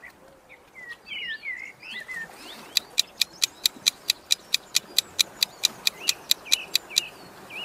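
Birdsong sound effect with short chirps, joined about three seconds in by a rapid timer tick, about six ticks a second, that stops near the end. The ticks are the loudest sound.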